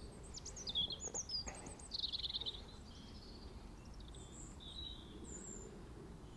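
Small birds chirping and calling, with short high sweeping notes and a rapid trill about two seconds in.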